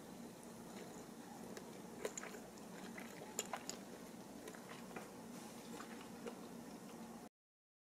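Someone chewing a bite of keto sausage bread, with small crisp clicks and crunches scattered through it, over a faint steady room hum. The sound cuts off abruptly near the end.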